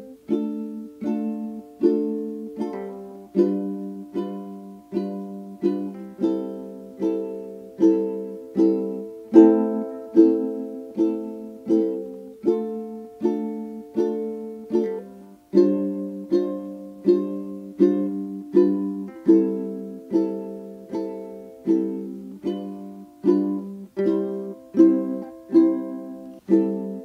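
Background music: a plucked string instrument playing chords in a steady rhythm, a little over one chord a second, each one ringing and dying away.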